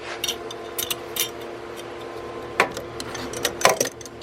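Loose metal hand tools clinking and knocking as they are picked up and set down, with a few sharp taps, the loudest about two and a half and three and a half seconds in. A steady low hum runs under them.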